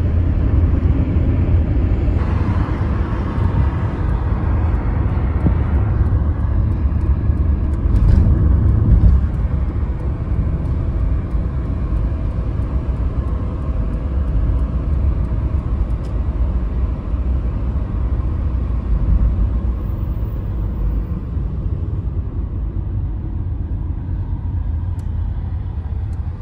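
Steady low rumble of a moving car heard from inside the cabin: engine and tyre noise while driving, a little louder about eight seconds in.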